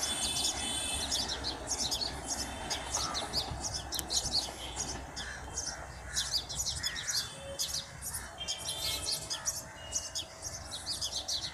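Small birds chirping, many short high-pitched chirps a second, over a low steady background rumble.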